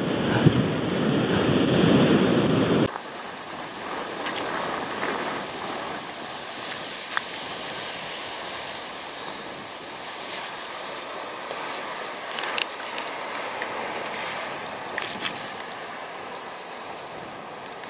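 Surf breaking on a rocky shore, with wind buffeting the helmet camera's microphone. About three seconds in the sound switches abruptly to a quieter, steady wash of surf with a few faint clicks.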